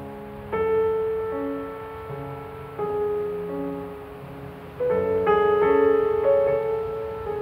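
Slow solo piano music: chords struck about half a second in, again near three seconds and around five seconds, each left to ring and fade.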